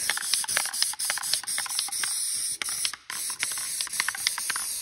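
Paint spraying: a steady hiss of spray with many small ticks in it. It breaks off briefly about three seconds in, then resumes.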